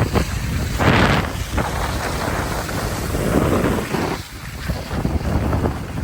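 Wind buffeting the microphone in gusts, a rushing rumble that swells about a second in and again near the end.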